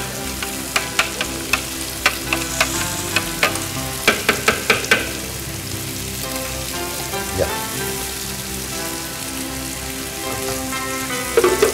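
A metal spoon clicking and scraping in the bowl of a mini food chopper as chopped garlic is stirred, in quick taps through the first five seconds. A steady sizzle runs underneath.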